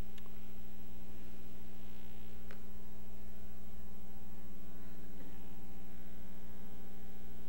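Steady electrical mains hum, a stack of even unchanging tones, with two faint ticks.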